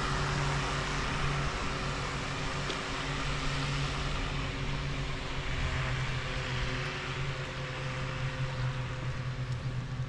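A motor vehicle's engine running with a steady hum over a hiss, slowly fading away.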